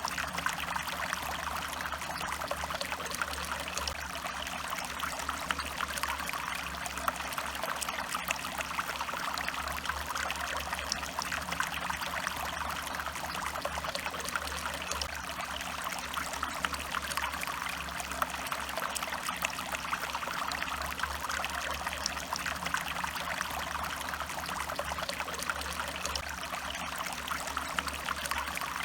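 A small stream flowing and trickling over stones, a steady, even babble of water.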